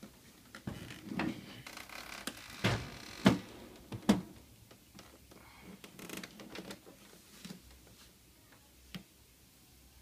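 Plastic housing of a Midea portable dehumidifier being handled and tilted over onto its back: a run of knocks, scrapes and rustling through the first four seconds, the loudest two sharp knocks about three and four seconds in, then a few faint clicks.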